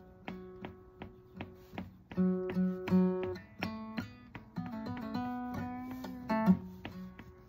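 1970 Gibson Gospel acoustic guitar played solo: plucked chord notes ringing in a steady pattern, then a short run of changing single notes in the middle before the chord pattern returns near the end.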